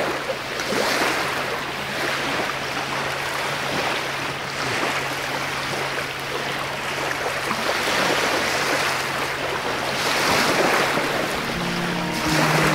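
Small waves washing ashore, the sound swelling and easing every two to three seconds.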